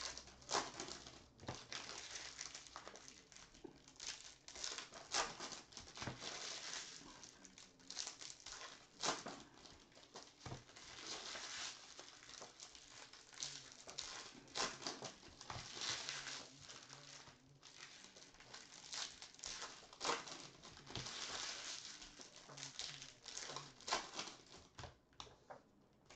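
2020 Bowman baseball trading cards being flipped and slid one at a time off a stack by hand, with a foil pack wrapper crinkling. The sound is soft and comes as a long run of irregular rustles and light card slaps.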